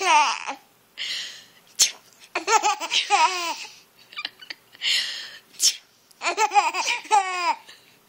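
A young child's high-pitched laughter in repeated fits, answering two sneezes that come in the pauses between them. Each sneeze is a breathy 'ah' followed by a sharp 'choo'.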